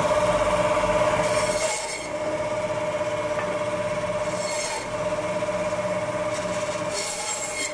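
Meat band saw running with a steady whine, its blade rasping through meat and bone three times as slices are pushed through.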